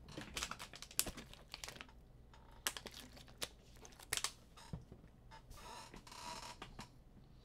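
Faint, irregular clicking of typing on a computer keyboard, with a brief soft rustle about five and a half seconds in.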